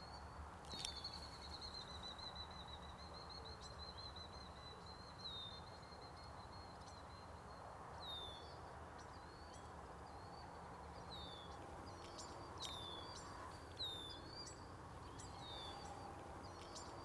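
Faint birdsong over a steady low background hum. One long wavering trill runs through the first few seconds, then short downward-slurred chirps repeat every second or two.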